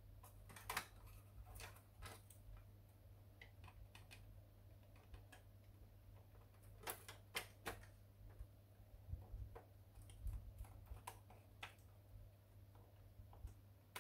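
Scattered light clicks and taps of plastic parts being handled and fitted as the paper guide goes back into a Canon LBP251 laser printer, over a faint steady low hum.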